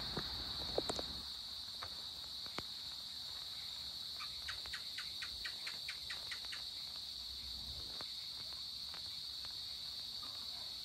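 Evening insect chorus: a steady high-pitched drone. A few sharp clicks come about a second in, and a rapid run of about ten short chirps at roughly five a second comes about four seconds in.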